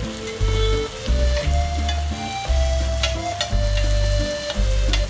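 Marinated chicken sizzling on a large flat iron griddle, with a metal spatula scraping and tapping against the iron as it stirs the pieces. A backing track with a pulsing bass plays over it.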